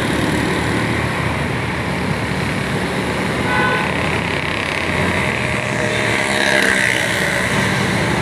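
A vehicle's engine running steadily while driving on a road, with a brief horn toot about three and a half seconds in.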